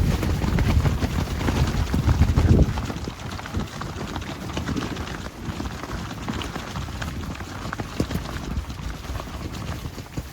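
Strong wind buffeting the microphone as a heavy low rumble for the first few seconds, easing off after that. Rapid irregular clicks and rustles follow.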